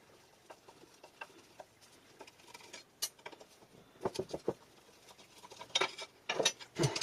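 Scattered small clicks, taps and scrapes of steel vise parts and hand tools being handled and set down on a workbench, sparse at first and busier over the last few seconds.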